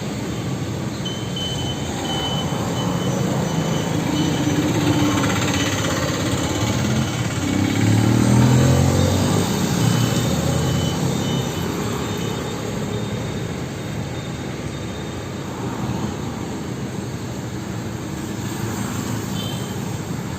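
Road traffic: a steady mixed rumble of passing vehicles, with one vehicle's engine passing close and loudest about eight seconds in before the noise settles back.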